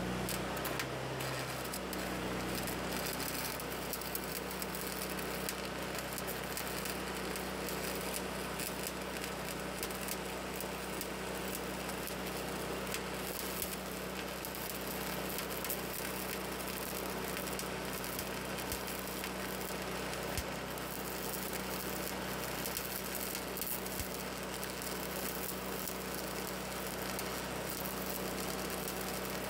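Stick welding arc crackling and sizzling steadily over a steady low hum.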